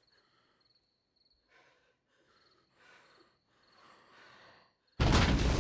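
Hushed, tense quiet: soft breaths and sighs and a faint, steady chirping of insects. About five seconds in, a sudden loud burst of sound cuts in.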